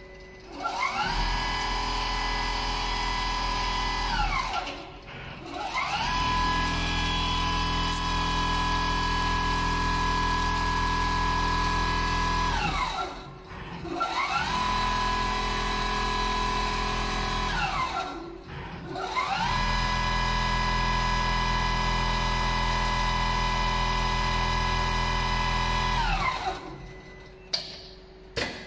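Large-format CNC pattern sewing machine with a 360-degree rotating sewing head stitching in four runs. Each run starts with a whine that rises as the motor speeds up, holds steady while sewing, then falls as it slows to a stop, with short pauses between runs.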